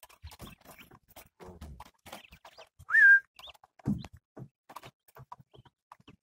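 A caged quail gives one short chirp about three seconds in, rising then holding, the loudest sound here, with a faint higher peep just after it. Scattered light clicks and taps run through around it.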